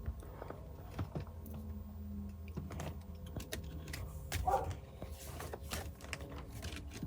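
Small irregular clicks and plastic rattles of wiring and multimeter probes being handled under a car's dashboard, over a steady low hum.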